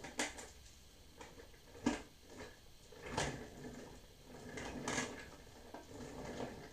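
Plastic toy parts of a Legacy Titanus figure being handled and fitted together on a glass tabletop: a few sharp clicks and knocks, the loudest a little under two seconds in, with softer handling noise between.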